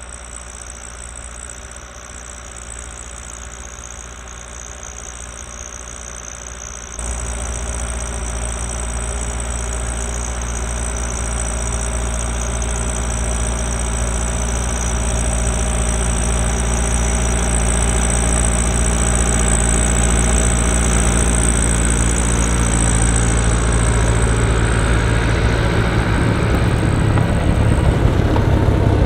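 New Holland L85 tractor's diesel engine running under load, driving a PTO-powered two-stage snowblower, with a steady high whine over the engine. It jumps louder about seven seconds in and keeps growing louder as the tractor comes close.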